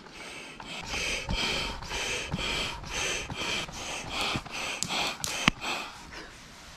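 Night-time chorus of calling animals, a rhythmic high pulsing about twice a second, with a few sharp clicks over it.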